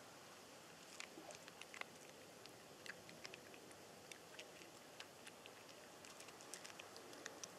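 Faint, irregular crunchy clicks of a cat eating dry food, starting about a second in, over a low hiss.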